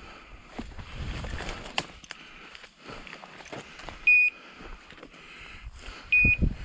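Two short, high electronic beeps about two seconds apart, from a hunting dog's beeper collar, over the rustle and crackle of footsteps pushing through dry scrub.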